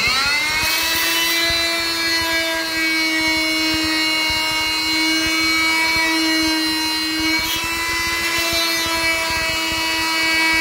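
Harbor Freight oscillating multi-tool, fitted with a sharpened old saw blade, scraping old bed-cap adhesive off a truck bed rail. It is switched on right at the start, rises briefly in pitch, then holds a steady buzzing whine.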